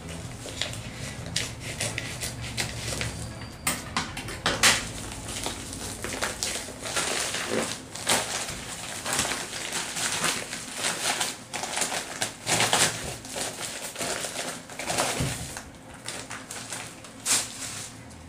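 Plastic shipping mailer and its inner wrapping crinkling and rustling in irregular crackly bursts as a boxed TV box is tugged and slid out of the bag.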